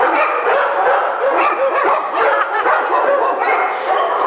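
Several dogs barking and yipping at once, short barks overlapping in a continuous, loud chorus with no break.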